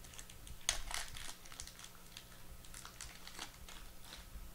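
Foil wrapper of a trading card pack crinkled and torn open by hand: faint scattered crackles, loudest about a second in.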